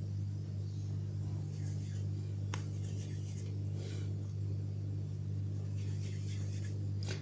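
Steady low electrical hum, with faint soft rustles of hands rolling a ball of shortbread dough and one small click about two and a half seconds in.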